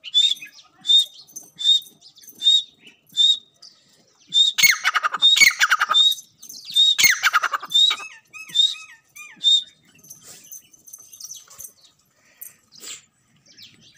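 Grey francolins calling: a run of short high notes about every 0.7 s, then two louder, longer calls about 5 and 7 seconds in, followed by a few short down-curving notes and fainter calls.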